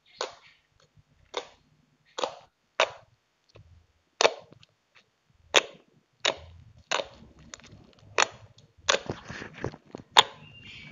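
Stretchy glue slime being squeezed and pressed by hand, making a series of sharp, uneven pops and clicks, roughly one or two a second.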